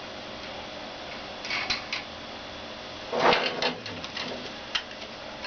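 Hands working on a wheelchair's parts: three light clicks, then a louder clatter of knocks about three seconds in, followed by a few scattered clicks.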